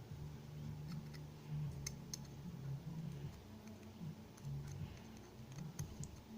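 Faint, sparse light clicks of a gutted pin-tumbler lock's small metal parts, its pins and core, being handled, over a low steady hum.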